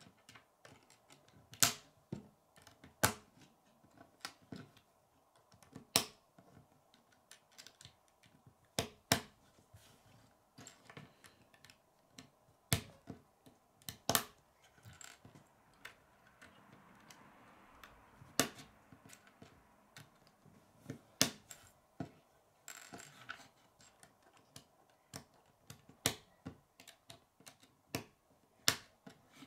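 K'nex plastic rods and connectors being snapped together and handled on a wooden tabletop: sharp, irregular clicks about every second or so, some in quick pairs.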